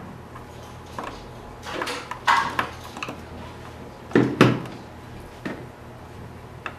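Hand-tool handling noise: a screwdriver and hands knocking and clicking against the Ninebot Mini's control board plate and frame in a series of separate knocks, the loudest about two and four seconds in.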